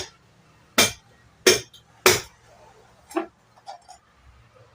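Ceiling fan motor housing, held upside down, being knocked to work its cover loose: three sharp knocks about two-thirds of a second apart, then two lighter ones.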